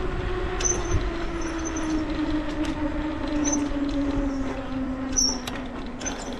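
Bicycle rolling along a concrete sidewalk: a steady hum that slowly falls in pitch as the bike slows, over a low rumble, with a few faint high chirps and clicks.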